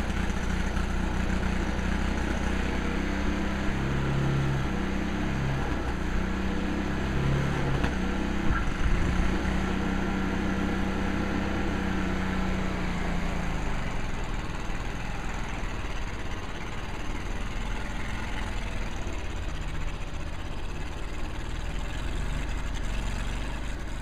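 Walk-behind snowblower's small gasoline engine running steadily as it clears snow, its pitch shifting a little under changing load, then a little fainter in the second half.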